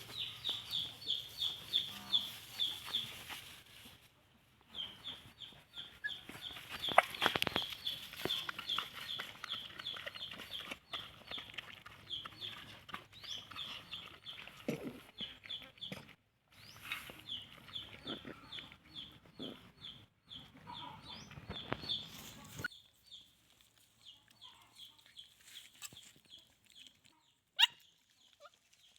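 Baby chicks peeping: a rapid, rhythmic series of short high peeps, several a second. They stop abruptly about 22 seconds in, leaving a few fainter peeps and a single sharp click near the end.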